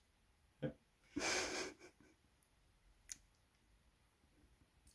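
A short breathy laugh about a second in, after a brief vocal sound, with one faint click a couple of seconds later.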